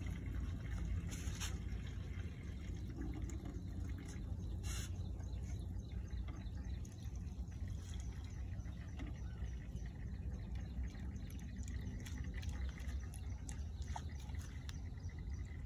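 Water poured from a plastic jug through a cloth filter into a knapsack sprayer tank, trickling as the tank fills. The cloth strains out sand so the sprayer's pump does not clog.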